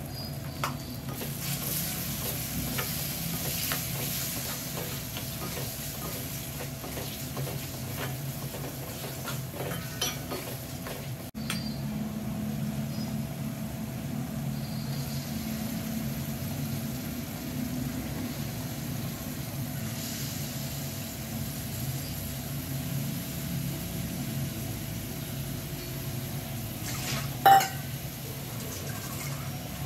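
Food sizzling and frying in a pan while it is stirred, with small utensil scrapes and taps. Near the end comes one sharp, loud clink.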